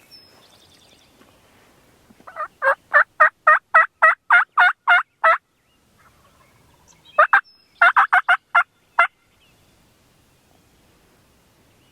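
Turkey yelping: a run of about a dozen evenly spaced yelps, about four a second, then after a short pause a second run of about nine more.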